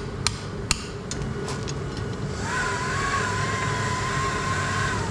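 Hand hammer striking a red-hot rivet in a heading tool on a power hammer's bottom die: two sharp ringing metal blows in the first second, then a few lighter taps. From about halfway a steady high whine holds for a couple of seconds over a constant low machine hum.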